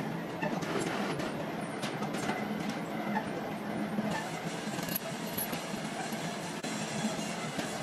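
Workshop machinery running steadily, a low hum under a noisy clatter with scattered light knocks and clicks.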